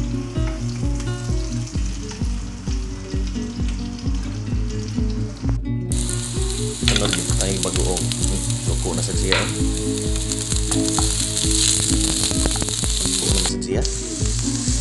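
Eggplant slices frying in hot oil in a pan, a steady sizzle with the wooden spatula stirring and turning them. The sizzle gets much louder after a short break about six seconds in. Background music with a steady beat plays under it.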